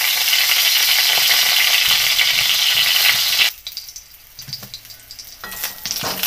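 Oil sizzling loudly in a metal kadhai as whole small eggplants roast in it. The hiss cuts off abruptly about three and a half seconds in, leaving a much quieter sizzle with a few light knocks as a wooden spatula turns the eggplants near the end.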